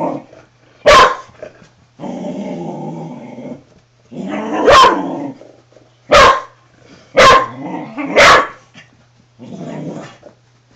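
A spaniel growling and barking at a toy helicopter: long, rough growls broken by about five short, sharp barks, a warning at an unfamiliar object.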